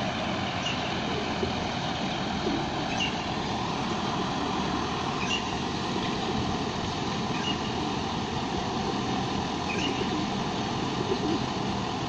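Steady traffic noise with no breaks, and a faint short high chirp repeating about every two seconds.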